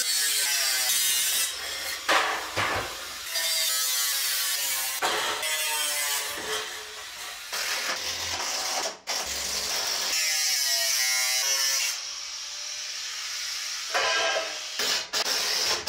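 Corded angle grinder cutting sheet-metal roofing in several short runs: a harsh high hiss with a whine that rises and falls as the disc takes load, broken by abrupt stops and restarts. A quieter stretch of a cordless drill-driver comes in the middle.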